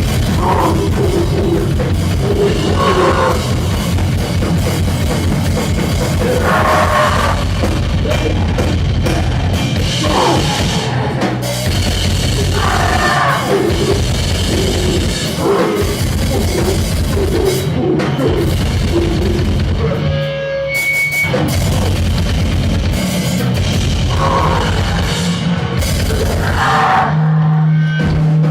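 Noisecore band playing loud and fast: a pounding drum kit with crashing cymbals under a dense wall of distorted noise, thinning out briefly about two-thirds of the way through.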